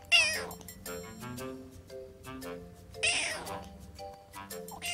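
Tabby kitten meowing: a loud, high, wavering cry just after the start, another about three seconds in, and a third beginning at the very end, over soft background music of plucked notes.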